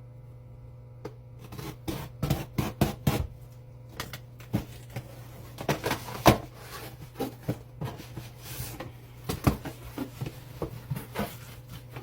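A cat water fountain's box and packaging being opened and handled: an irregular run of sharp clicks, taps, rustles and scrapes, thickest about two to three seconds in. A steady low hum runs underneath.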